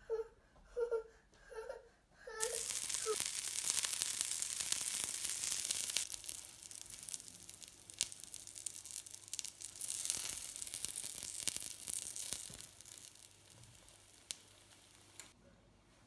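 A young child's voice babbling briefly, then stuffed blini sizzling as they fry in a nonstick pan, with a few clicks of a spoon against the pan. The sizzling fades toward the end.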